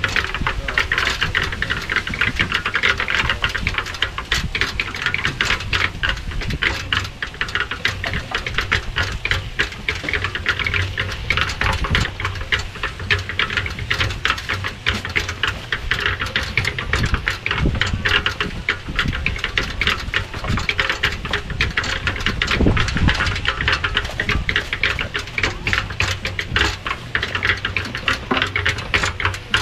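Belt-driven portable concrete mixer running, its drum churning a wet concrete mix with a steady gritty rattle over a low rumble.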